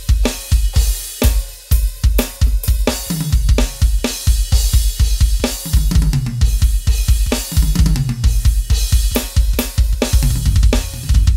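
Roland TD-11K electronic drum kit's module sounds being played as a full kit: a fast groove of kick drum, snare and cymbals. Several tom fills run down in pitch across the toms, about three, five and a half, seven and a half, and ten seconds in.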